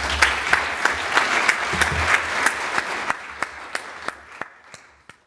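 Audience applauding at the end of a talk. The applause thins to a few scattered claps near the end, then stops abruptly.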